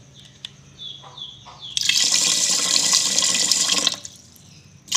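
Water pouring in a steady stream into a rice cooker's inner pot of washed rice. The stream starts about two seconds in and stops about two seconds later, then starts again at the very end. This is water being added to the rice to set the level before cooking.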